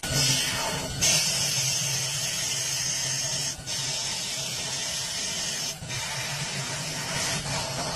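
CNC lathe turning a part with coolant spraying: a steady hiss over a low machine hum, breaking off briefly twice.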